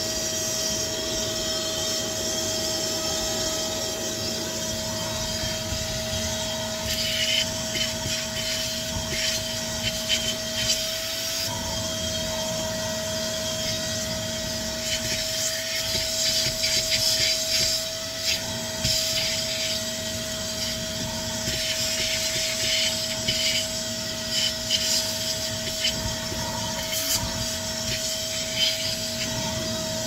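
Vacuum cleaner running steadily with a constant whine, its nozzle scraping and rubbing irregularly over the car's interior from about a quarter of the way in.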